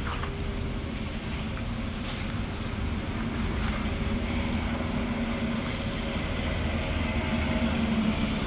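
A motor running steadily: a low rumble with a constant hum, growing slightly louder toward the end.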